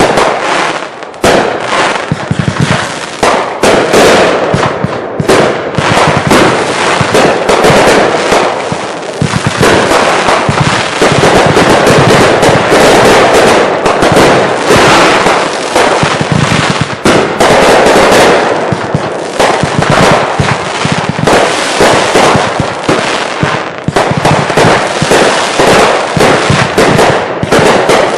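Consumer fireworks going off in a continuous finale barrage: dense rapid bangs and crackling, many reports a second, overlapping into an almost unbroken roar that stays loud for most of the time.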